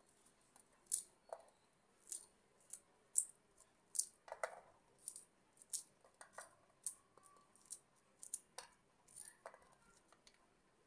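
Kernels being thumbed off a corn cob: a string of short crisp snaps, about one or two a second, some with a small click as kernels drop onto a steel plate.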